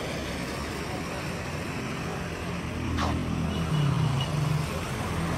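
Road traffic on a rain-wet street: a steady hiss of tyres on the wet road, with a vehicle engine passing loudest a little past halfway. There is a brief sharp click about three seconds in.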